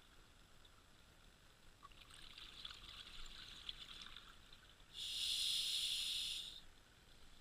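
A scuba diver breathing underwater: a few seconds of crackling exhaust bubbles, then a loud hiss of inhalation through the regulator about five seconds in.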